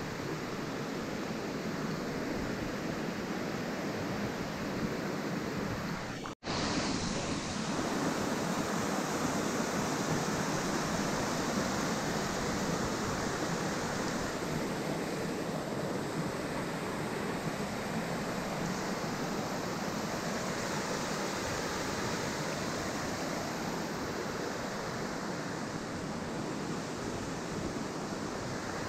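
Steady rush of flowing water, an even hiss with no rhythm. It cuts out for a split second about six seconds in, then carries on unchanged.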